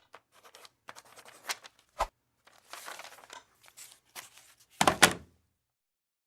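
A string of isolated cartoon foley sound effects: short scrapes and rustles, a sharp knock about two seconds in, and a louder double thud about five seconds in.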